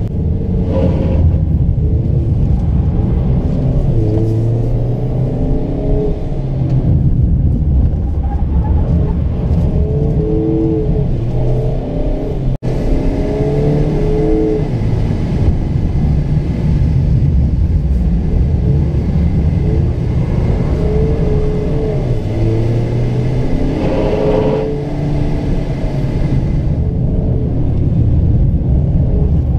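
Mazda MX-5 Miata RF's four-cylinder engine heard from inside the cabin, repeatedly rising and falling in revs as the car accelerates and eases off, over a steady low rumble of the car on the wet road. The sound cuts out for an instant about halfway through.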